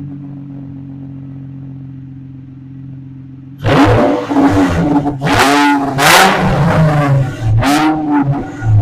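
Nissan 350Z's 3.5-litre VQ35DE V6 running with the rear exhaust removed, exhausting straight out of the Y-pipe. It idles steadily, then from about three and a half seconds in gives about five quick throttle blips, each rising and falling in pitch, really loud.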